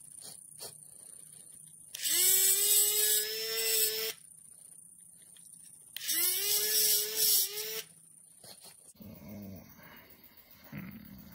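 Dremel rotary tool with a cutoff wheel grinding a small copper piece in two bursts of about two seconds each, a motor whine that rises slightly as it spins up, over a hissing grind.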